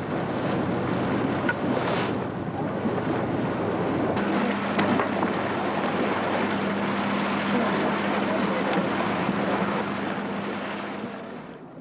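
Wind buffeting the microphone and rushing sea water aboard boats under way at sea, over a steady low engine hum from the towing motor vessel. About four seconds in, the hum shifts to a higher steady note.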